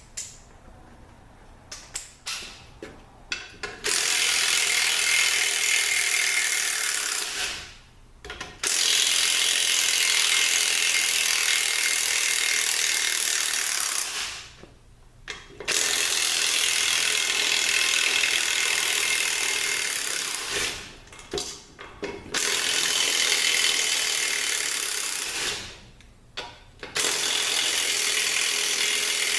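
A power ratchet running bolts out of a transaxle differential in five steady runs of a few seconds each, with short pauses between and a few small clicks at the start. The bolts are held with a lot of Loctite.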